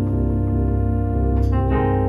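Electronic organ playing held chords over a bass line. The chord changes about one and a half seconds in.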